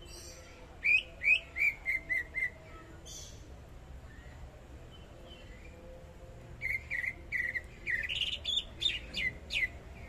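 Cucak ijo (greater green leafbird) in full song: two bursts of quick, clear whistled notes. The first, about a second in, is six loud falling notes. The second, starting past the halfway mark, is a longer run that climbs higher toward its end.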